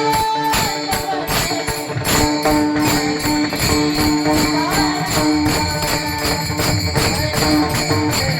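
Instrumental kirtan accompaniment without singing: jingling metal percussion keeps a quick, steady beat over sustained held notes.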